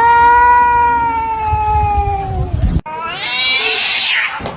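A cat yowling: one long, drawn-out call whose pitch sags at the end, cut off abruptly, then a second call that rises in pitch.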